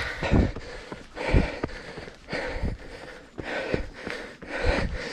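A trail runner breathing hard and rhythmically, about one breath a second, while running up a long gentle forest climb, with a few low thuds of footfalls.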